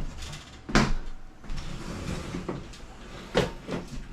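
A few sharp knocks and clicks from the ceiling fan's light fitting being handled while the bulb is changed. The loudest comes just under a second in and another near the end.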